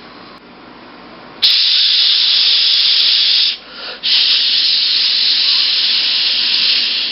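Loud, steady steam-like hiss in two long spells with a short break in between, fading away near the end.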